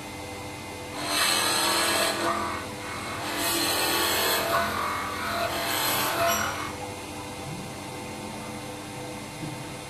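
Mini wood lathe turning a wooden blank: the motor runs steadily while the cutting tool shaves the spinning wood. The cutting is loudest from about a second in until nearly seven seconds, then drops back to the motor running alone.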